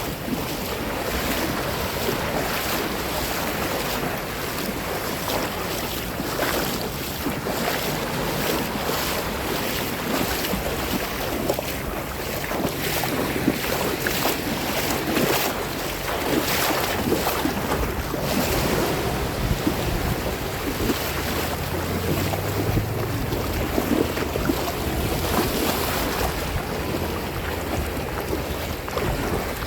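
Sea water splashing and lapping close to the microphone, a steady wash of small splashes with wind rumbling on the microphone.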